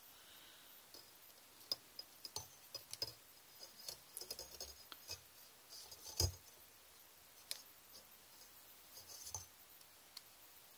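Faint, scattered clicks and ticks of thin craft wire being coiled and bent by hand around a crystal, with one sharper click about six seconds in.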